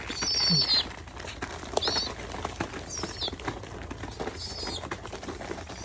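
Pigeon giving about four short, high-pitched squeaks, the first one the longest, over faint light clicking typical of a bird pecking feed from a hand.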